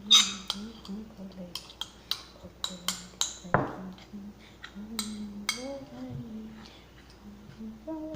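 A utensil clinking and tapping against a dish or container: a run of sharp, irregular clicks, about two or three a second.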